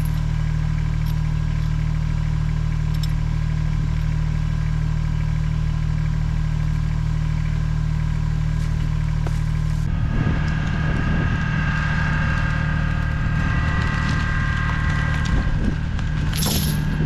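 Kubota tractor's diesel engine running steadily. From about ten seconds in, extra mechanical rumble and a higher whine join it for several seconds.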